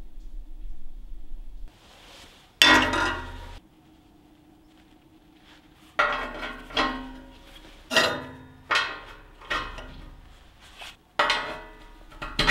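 Steel stop pins being dropped into the holes of a STAHLWERK steel welding table, each one landing with a sharp metallic clink that rings briefly, about ten in the last six seconds. A single louder clank comes about two and a half seconds in.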